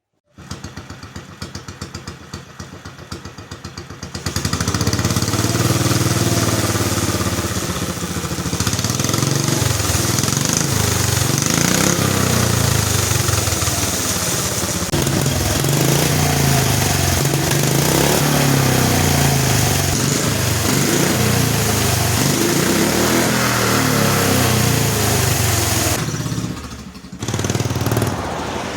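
A small gasoline engine runs with quick, even firing pulses for about four seconds. It then revs up and runs loud, its pitch rising and falling as the throttle changes, and eases off near the end.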